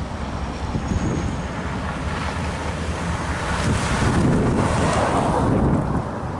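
Wind buffeting the microphone, with a car passing close by: its tyre and engine noise swells about four seconds in and fades again before the end.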